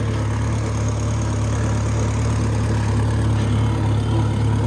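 Oliver Super 66 tractor engine running steadily at a low, even speed.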